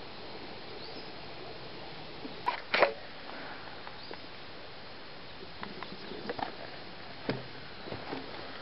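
A pair of loud sharp cracks about two and a half seconds in, then scattered lighter clicks, over a steady background hiss.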